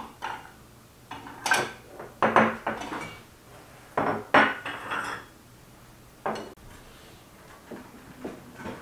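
China plates and saucers taken off a tray and set down one by one on a wooden table: a string of sharp clinks with a brief ring, loudest in the first five seconds and sparser near the end.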